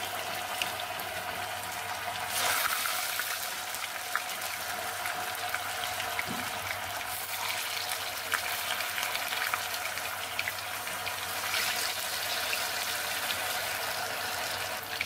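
Potato-and-paneer boats deep-frying in hot oil in a wok: a steady sizzle with scattered small pops and crackles. It grows a little louder about two seconds in.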